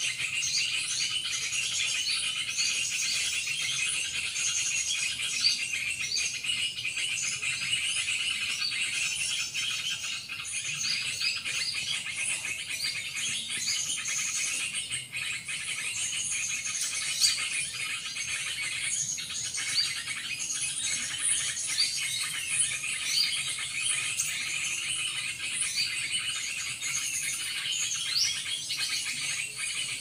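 Steady chorus of insects with many short bird chirps over it.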